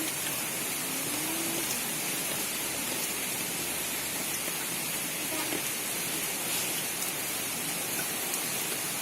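Steady hiss of light drizzling rain, with a faint low gliding tone about a second in.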